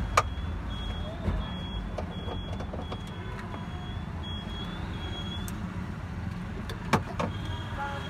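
Hand tools and metal parts clicking as a car's seat belt retractor and pretensioner are unbolted from the B-pillar: sharp clicks near the start and again about a second before the end, over a steady low rumble.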